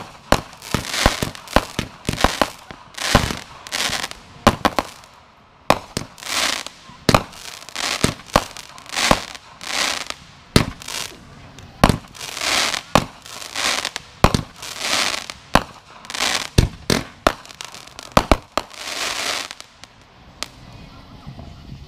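Consumer aerial fireworks going off in quick succession: sharp bangs of launches and bursts mixed with short stretches of crackle from the bursting stars. The barrage stops near the end.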